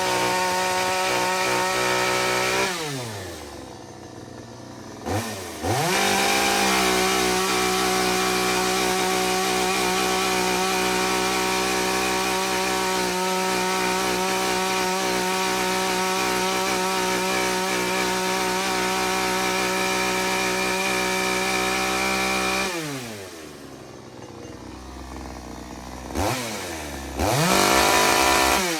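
Parkside two-stroke petrol chainsaw cutting through cherry wood at full throttle. Twice it drops to idle and revs back up, and it falls off again near the end.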